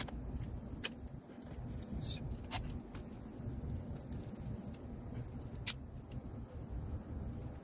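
Handling noise from a plastic transducer mount and its rubber-coated cable being coiled and worked by hand: a few sharp clicks, the loudest near the end, over a steady low rumble.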